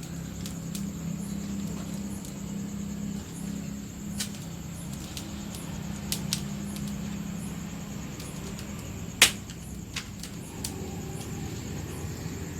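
Wood fire crackling, with a few sharp pops, the loudest about nine seconds in, over a steady low hum and the steady high chirring of crickets.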